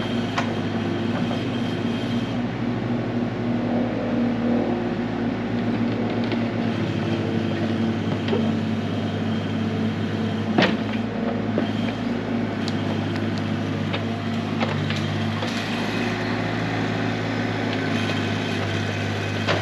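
Engine of heavy equipment running steadily with a low hum, with sharp clanks now and then, the loudest about halfway through.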